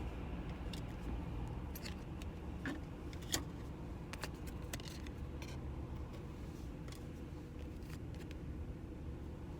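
A trading-card packet being torn open and its cards handled: scattered sharp crinkles and clicks over a steady low hum in a car's cabin.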